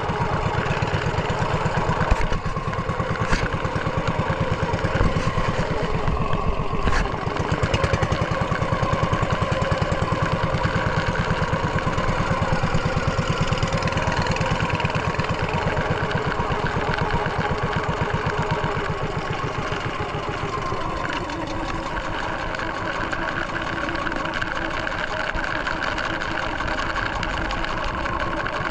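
Small engine of a motorized outrigger fishing boat running steadily under way, with water rushing and splashing along the hull. A few sharp knocks come in the first several seconds, and the engine eases off slightly about twenty seconds in.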